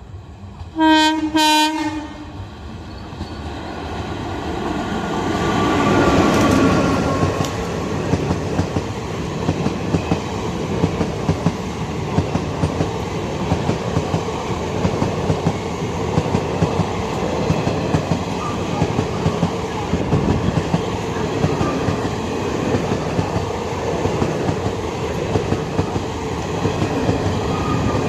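Indian Railways train horn, two short blasts, followed by the train passing at speed: a rising rumble that peaks about six seconds in, then steady running noise with the clickety-clack of wheels over the rail joints.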